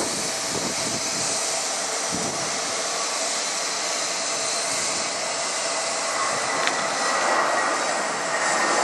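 Airbus A320-232's IAE V2500 turbofan engines at take-off thrust: a steady jet roar, with a thin whine coming in during the second half and the sound growing louder near the end as the airliner lifts off and climbs away.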